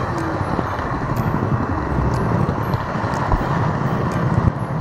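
Model train running along the track, a steady rumble of wheels and motor heard close up from a camera riding on the train.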